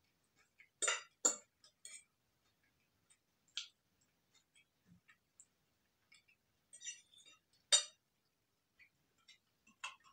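Metal fork clinking and scraping against a ceramic plate while eating: a few sharp clinks, two close together about a second in and more spread through the rest, with faint small clicks between.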